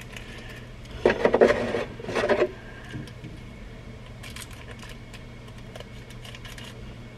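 Small plastic packet rustling and crinkling as it is handled and opened, in two short bursts about a second in, followed by faint clicks of handling.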